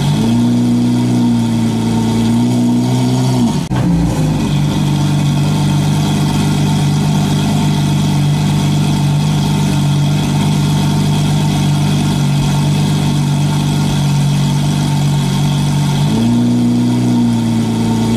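Car engine running: its pitch steps up at the very start, drops back to a steady idle about three and a half seconds in, and rises again about sixteen seconds in.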